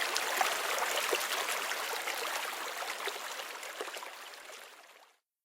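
Sound effect of a small stream: water running and trickling steadily, fading out about five seconds in.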